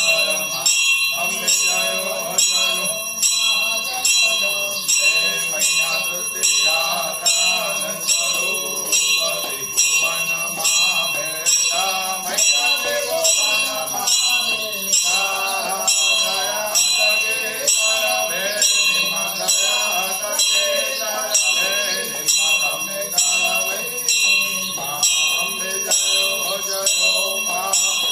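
Temple bells ringing in a steady, even rhythm during a Hindu aarti, over devotional music.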